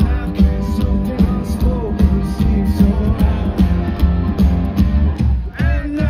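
Live rock band playing loud through a festival PA: distorted electric guitar, bass and drums with vocals, heard from within the crowd. A little after five seconds in, the full band drops out in a short break before coming back in.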